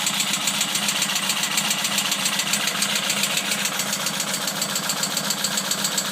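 Tuned Opel Kadett B 1.2 S four-cylinder OHV engine idling with an even, rapid ticking knock, about six beats a second. The owner suspects the noise comes from low down in the engine, perhaps a bearing.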